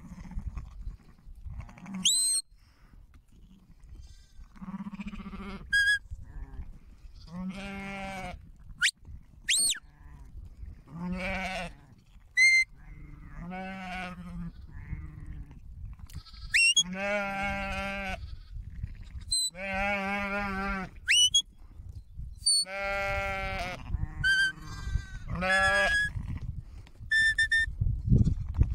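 Sheep bleating: long, wavering calls that repeat about every three seconds, several animals answering one another.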